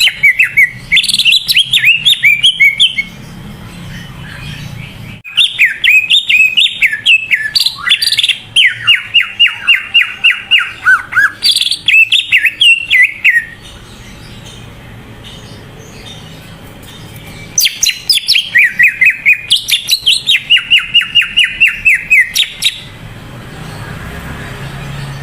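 Cucak ijo (green leafbird) in vigorous 'gacor' full song. It sings three bouts of rapid, jumping chirps and fast repeated trills, separated by pauses of a few seconds.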